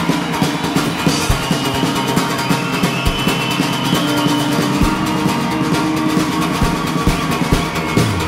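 Live band playing an instrumental passage: strummed guitars over drums, with steady cymbal strokes.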